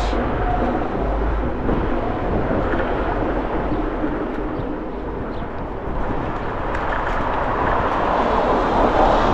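Steady street noise heard from a moving electric scooter: a rush of rolling and wind with a low rumble, growing louder about eight seconds in.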